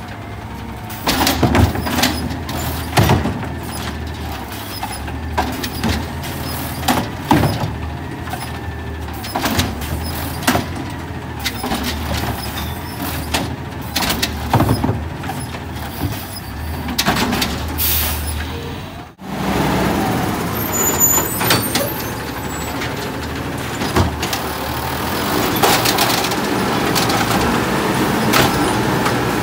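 Automated side-loader garbage truck at work: engine running, with repeated knocks and bangs as the arm grips, shakes out and sets down wheelie carts. Sudden break about 19 s in, after which the truck runs more steadily with fewer knocks.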